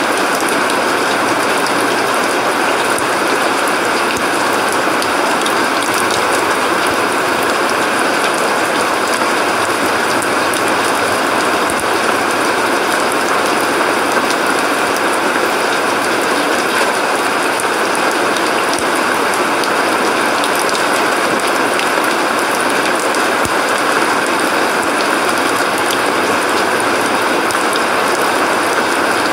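Steady, loud rain falling: an even hiss, densely crackling with the small ticks of close drops.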